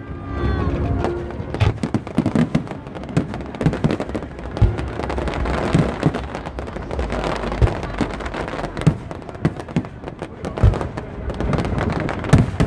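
Aerial fireworks going off: many bangs and crackling bursts in quick succession, some louder, over a steady rumble.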